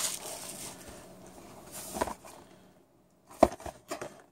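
Cardboard trading-card blaster box being handled: a fading rustle, a soft tap about two seconds in, then a sharp click and a few lighter taps near the end.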